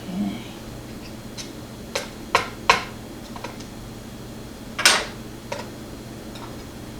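Light metallic clicks and taps of small lock parts and tools being handled: a few single clicks about two to three and a half seconds in, then the loudest, slightly longer clink near five seconds and one more soft click after it.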